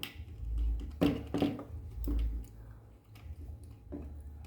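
Hands handling small wires and heat-shrink sleeving on a workbench: a few light taps and clicks, irregularly spaced, over a faint low hum.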